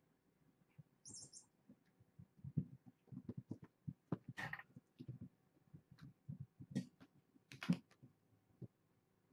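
Kittens scuffling and playing, with irregular soft thumps and rustles and a few faint high squeaks.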